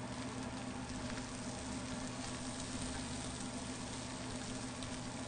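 Wild rice and corn sizzling steadily in a hot frying pan as they are stirred with a spatula, over a steady low hum.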